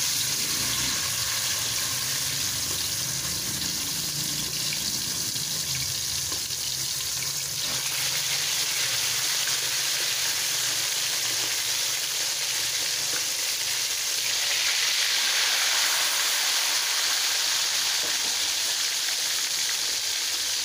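Mamsa (trevally) fish pieces sizzling as they deep-fry in hot oil in a steel wok. The sizzle grows louder about seven seconds in and again after about fourteen seconds, as more pieces go into the oil.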